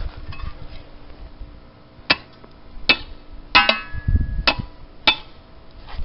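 Knocks on a pan of water frozen solid: about five sharp knocks, the middle one leaving the pan ringing briefly, with a dull thud among them.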